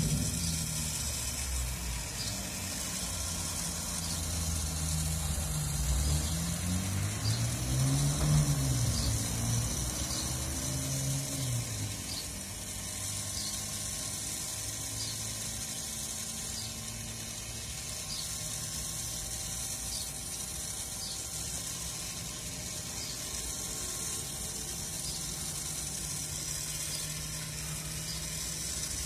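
Rotisserie spit turning over a charcoal grill, with light mechanical ticks every second or so over a steady low hum. A louder hum swells and rises, then falls in pitch, about a quarter of the way in before fading.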